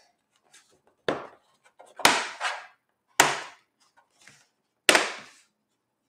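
Snap-fit clips of a Lenovo Ideapad 3 laptop's plastic bottom cover clicking into place as it is pressed down around its edges: about five sharp snaps, two of them close together about two seconds in.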